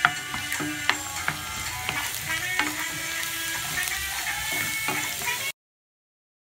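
Minced garlic sizzling and frying in hot oil in a frying pan, with a wooden spatula stirring and scraping and sharp clicks as it taps the pan. The sound cuts out abruptly near the end.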